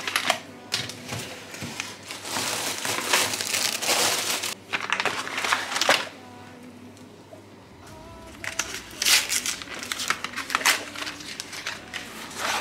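Plastic packaging crinkling and rustling as groceries are handled, in two spells with a pause of about two seconds between them.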